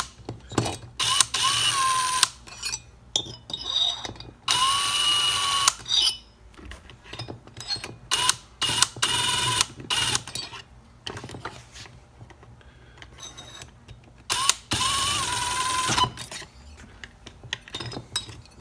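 Cordless power driver running Torx screws into a chainsaw cylinder in several short, light bursts of about a second each, each a steady whine, with clicks and rattles of the tool and bit between them.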